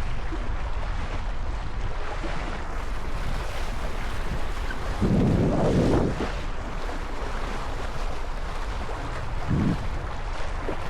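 Strong wind buffeting the microphone at a lake, over the wash of waves; a stronger gust comes about five seconds in and a shorter one near the end.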